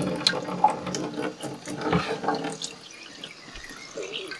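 Kitchen faucet running a thin stream of cold water into a small bowl in a stainless steel sink, with a few light clicks, and quieter in the second half.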